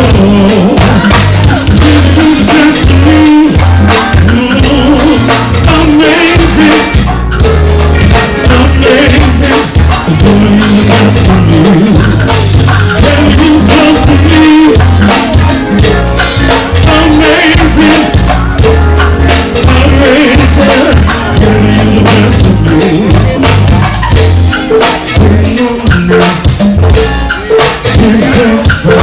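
Live go-go band playing loudly: congas and drums drive a steady percussion groove under a strong bass beat, with trombone and trumpet playing over it.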